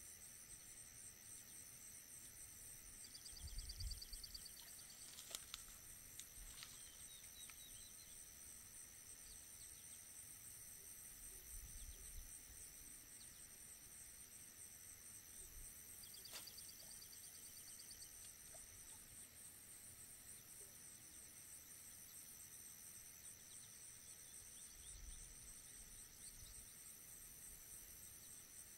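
Faint, steady high-pitched insect chorus, with a couple of short chirping trills and a few faint clicks.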